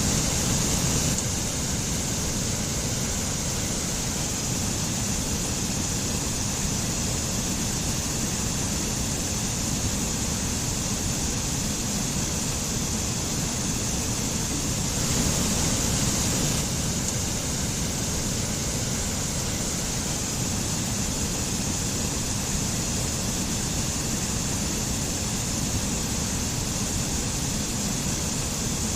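Mountain stream and waterfall: water rushing steadily, a little louder for a second or two about halfway through.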